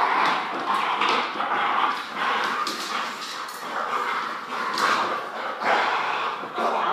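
Large dog vocalizing in play while tugging on a toy, a continuous rough sound that swells in short pulses about twice a second.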